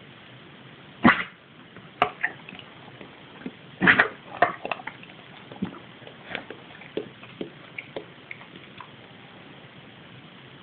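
Eight-month-old golden retriever coughing: two loud, sharp coughs about a second in and about four seconds in, each followed by a few smaller ones, then a run of fainter short sounds.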